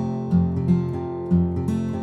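Background music: a strummed acoustic guitar, with about four strums.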